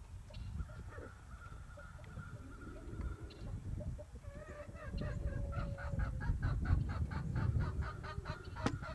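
Chickens clucking: from about halfway through, a rapid run of short calls, roughly five a second and quickening, over a low rumble of wind on the microphone.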